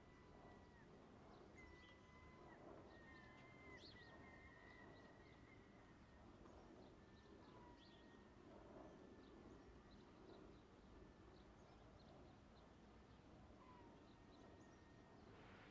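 Faint outdoor background noise with scattered short bird chirps and a faint, wavering high tone that comes and goes.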